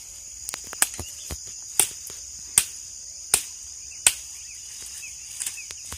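Dry jurema branches cracking and snapping sharply as they are pulled and broken off for firewood, in a series of cracks about a second apart, over a steady high chirring of insects.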